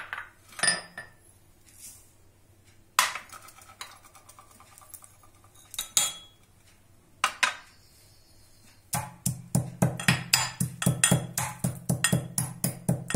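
Pestle pounding whole spices in a mortar to crush them. There are a few separate knocks and clinks at first, then from about two-thirds of the way in a fast, steady pounding of several strikes a second.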